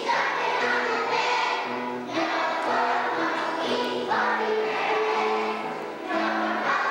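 A children's choir singing a song together.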